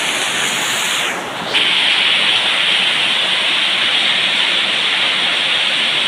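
Heavy rain pouring down, a dense, steady hiss that shifts and grows a little louder about a second and a half in.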